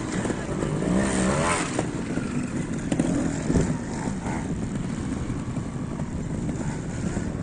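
Trials motorcycle engine revving in short throttle blips, strongest in the first two seconds, then running quieter. A couple of sharp knocks come about three seconds in.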